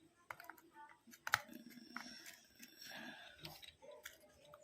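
Faint small clicks and taps from an opened scientific calculator being handled as its battery contact is pressed back into place, with one sharper click a little over a second in.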